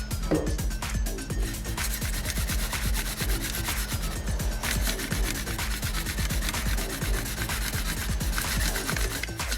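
A gritty rubbing from hand work on a motorcycle cylinder head, with background music with a steady beat underneath.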